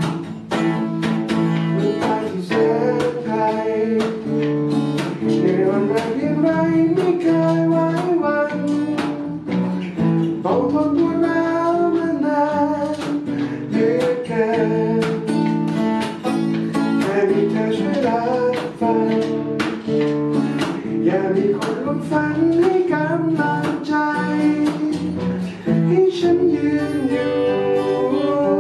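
A man sings a song while strumming a Yamaha steel-string acoustic guitar, with steady strokes under a melodic vocal line.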